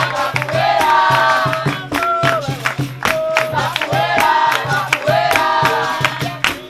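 Capoeira roda music: voices singing together over berimbau and pandeiro, with sharp percussive strikes repeating throughout.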